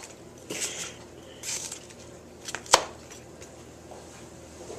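A knife cutting bell peppers and onions into large chunks on a cutting board: a few short slicing scrapes and one sharp knock of the blade on the board a little past the middle.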